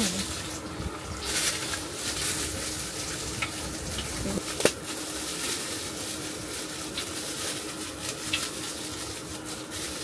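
Tempura frying in hot oil, a steady sizzle, with an occasional click of a utensil against the pan, the sharpest about halfway through.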